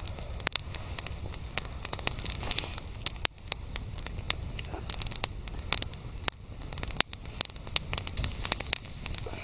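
Wood campfire crackling, with irregular sharp snaps several times a second over a low steady rumble.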